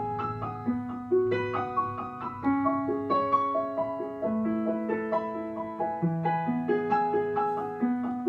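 Piano accompaniment playing a slow pattern of broken chords, its notes struck about twice a second and left to ring.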